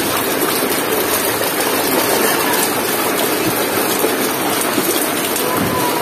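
Steady rain pattering on the water in an open tub and on the wet ground around it.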